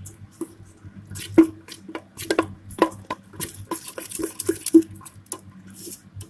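A spoon stirring garlic paste into thick dosa batter, clinking and scraping irregularly against the side of the vessel.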